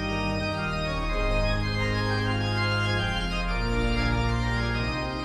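Organ music: slow, sustained chords, the notes shifting every second or two.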